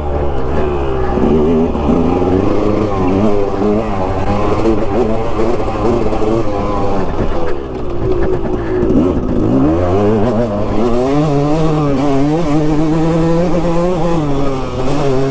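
2006 KTM 200 XC's single-cylinder two-stroke dirt bike engine revving up and down under load, its pitch rising and falling with the throttle. About eight seconds in it drops off, then climbs again and runs steadier near the end.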